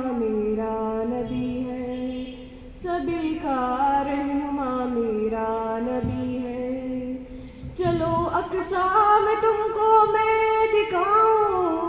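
A girl singing a naat, an Urdu devotional poem, unaccompanied, in three long held phrases with short breaths between.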